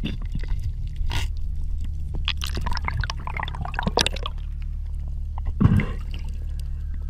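Underwater sound through a camera housing: a steady low hum, a spell of crackling, bubbling clicks from water moving around the diver's hands, and a dull thump late on.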